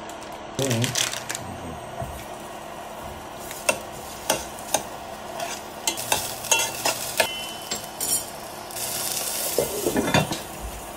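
Bacon sizzling as it fries in a pot, with a metal spoon stirring it and clinking against the pot several times. The sizzling gets louder briefly about nine seconds in.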